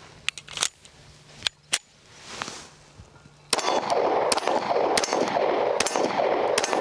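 Gunshots from a Springfield Armory Ronin Operator 1911 pistol firing 230-grain .45 ACP rounds: a few single shots in the first half, then, from about halfway in, a string of shots roughly every half second over a louder steady rushing noise.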